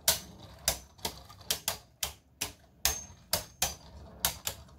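Two Beyblade Burst Rise Hypersphere spinning tops, Dusk Balkesh and Right Artemis, clashing as they spin in a plastic stadium: about a dozen sharp clacks at uneven spacing, two or three a second.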